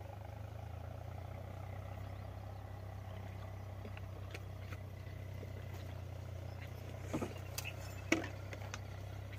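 A steady low hum, with a few sharp cracks and rustles about seven and eight seconds in, the loudest about eight seconds in, as a man climbs down off a fallen branch through dry brush.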